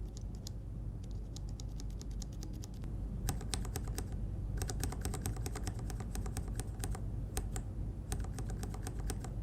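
Mechanical keyboard with linear switches being typed on, as a sample of how linear switches sound. A few scattered key presses come first, then fast, steady typing from about three seconds in, with a brief pause shortly after.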